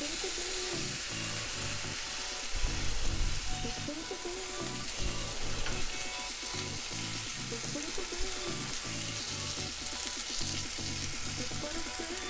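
A folded chicken-and-cheese quesadilla frying in butter in a nonstick frying pan, sizzling steadily. Background music with a repeating bass line plays underneath.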